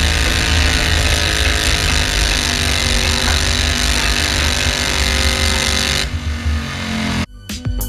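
Garden pulling tractor's engine running loud and steady. About six seconds in the sound thins out, and shortly after it cuts off abruptly.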